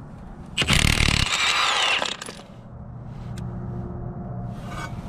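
Milwaukee M18 Fuel 2767 cordless impact wrench hammering a 19 mm Honda crankshaft pulley bolt loose through a heavy welded socket. A loud burst of about a second and a half starts about half a second in, with a falling whine near the end.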